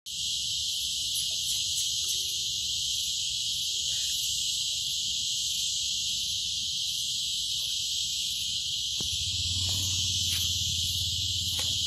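Dense, steady, high-pitched insect chorus that drones on without a break.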